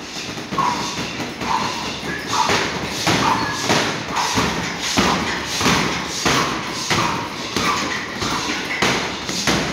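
Boxing gloves striking hanging heavy punching bags, a fast run of hits several times a second from more than one bag at once.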